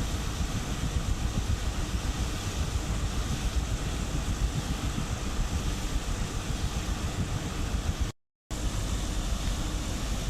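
Wind buffeting the microphone over a steady low rumble, choppy and without any clear engine note. The sound cuts out completely for a split second a little after eight seconds in.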